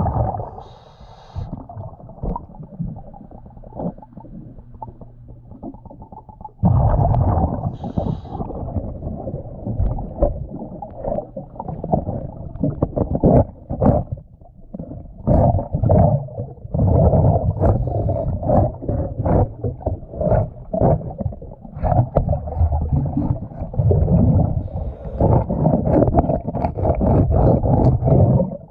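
Underwater sound close to a scuba diver working on a boat hull: two short regulator hisses on inhaling, about seven seconds apart, and low rumbling of exhaled bubbles. From about seven seconds in, a loud dense run of rough strokes as the hull is scrubbed.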